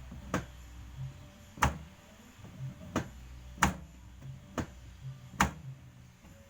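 A series of sharp knocks and clicks at uneven spacing, about six in all, three of them loud, as parts of the washing machine are handled and struck during repair work.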